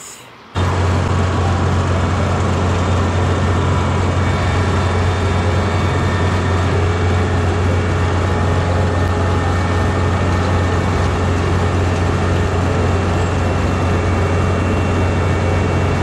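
Kubota combine harvester running: a loud, unchanging machine drone with a strong low hum, which cuts in abruptly about half a second in.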